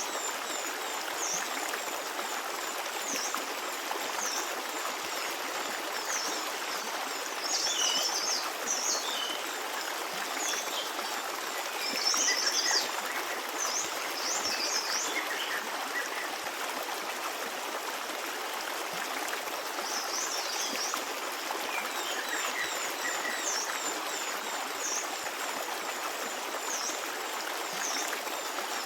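Stream water flowing and babbling steadily, with small birds chirping repeatedly over it in short high calls, busiest in a few clusters.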